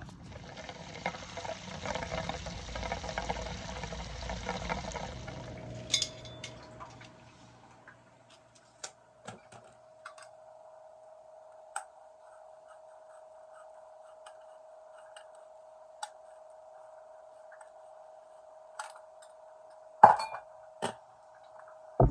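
Water rushing out for about five seconds, then a steady tone with scattered sharp metallic clinks, the loudest near the end.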